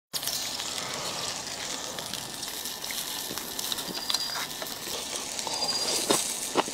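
A steady rushing, watery hiss with a couple of brief high bird chirps. Near the end comes a run of short wet smacking sounds as a man bites into and chews a piece of beef tripe.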